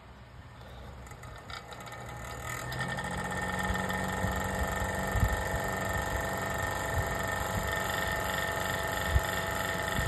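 Small generic fan heater's fan motor switched on, fan only, spinning up over the first few seconds and then running steadily with a hum. Its out-of-balance, bent blade makes it rattle and shake.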